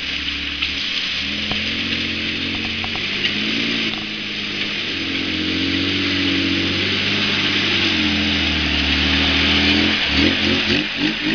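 1988 Nissan Pathfinder's engine running at low revs under load as the lifted 4x4 crawls through a hole in a dirt trail, its note rising and falling gently with the throttle. A steady high hiss runs under it.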